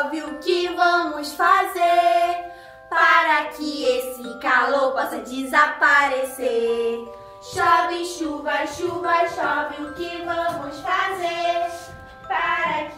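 Several female voices singing a Portuguese children's song together over an upbeat instrumental backing, in sung phrases with held notes.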